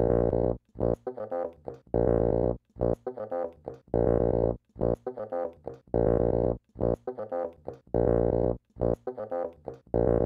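Electroacoustic music: a low pitched tone rich in overtones, cut into a loop that repeats about every two seconds, one held note followed by a stutter of short choppy repeats.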